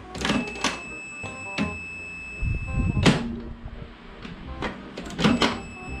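Multimeter continuity buzzer giving a steady high beep for about three seconds, then cutting off, amid sharp clicks and knocks from the probes and handling of the microwave's parts. Faint background music underneath.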